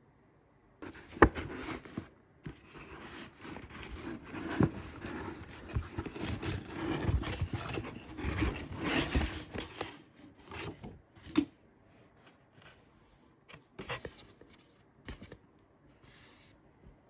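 A parcel being opened by hand: scraping, tearing and rustling of packaging with a few sharp clicks, dense for the first several seconds and then thinning to scattered rustles and clicks.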